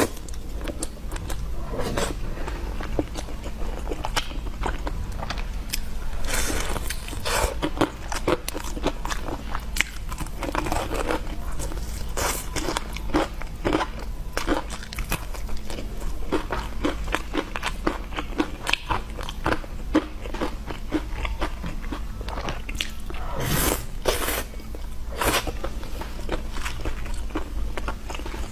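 Close-miked ASMR eating: someone biting into and chewing crunchy food, with dense, irregular crisp crackles and a few louder crunching bites.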